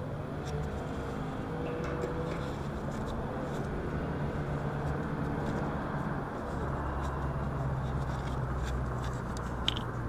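Steady low mechanical hum with a few light clicks and scrapes of hand work on a condenser's metal fan guard, and one sharper click near the end.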